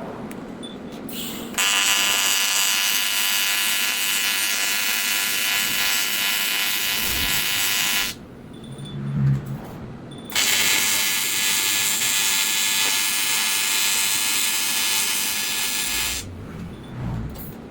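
AC TIG welding arc on aluminium, buzzing steadily in two runs of about six seconds each with a short pause between.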